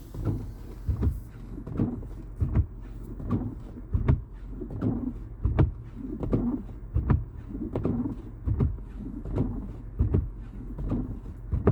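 Footsteps in a steady walking rhythm, about three soft thumps every two seconds, over a faint hiss.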